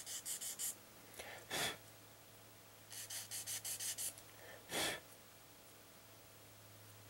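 400-grit sandpaper rubbed back and forth on a plastic model-kit part in two short runs of quick, even strokes. Each run is followed by a single puff of breath blowing the sanding dust off the part.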